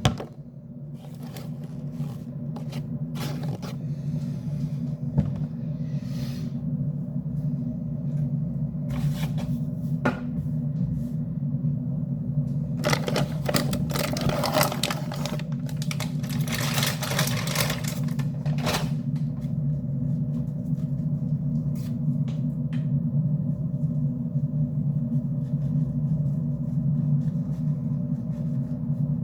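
Kitchen food-preparation noises: scattered knocks and scrapes of utensils and containers over a steady low hum. About halfway through comes a few seconds of louder rustling or rushing noise.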